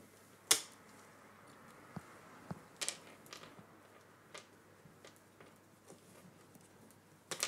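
A crow's beak and claws tapping and clicking on a wooden floor: a handful of scattered sharp taps, the loudest about half a second in and another near the end, against a quiet room.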